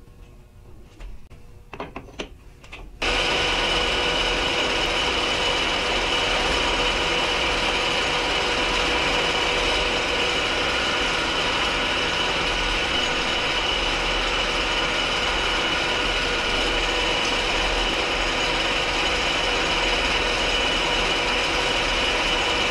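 A few light clicks of hand tool handling, then about three seconds in a Clausing metal lathe starts running steadily with a faint whine, a turning tool rubbing as it cuts a recess into the spinning metal part in the collet chuck.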